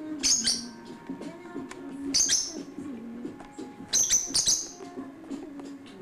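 Peach-faced lovebird giving sharp, high-pitched chirps in three short bursts about two seconds apart: near the start, about two seconds in, and a double chirp about four seconds in.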